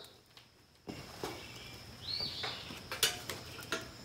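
Metal tongs clinking as lit charcoal briquettes are picked from a chimney starter and set down on concrete: a few sharp clicks, the loudest about three seconds in. A bird chirps once about two seconds in.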